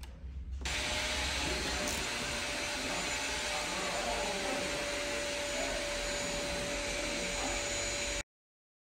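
A small electric motor and fan blowing air, running steadily with a faint constant whine. It starts just under a second in and cuts off abruptly near the end.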